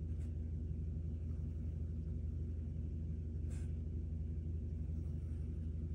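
Steady low electrical hum, with two faint, brief scratches of a mechanical pencil drawing lines on paper: one near the start and one about three and a half seconds in.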